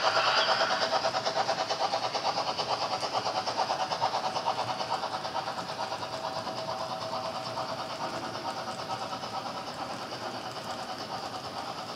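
HO-scale model steam locomotive and tank-wagon train running on layout track, with a quick, even beat of about five pulses a second that slowly fades as it draws away.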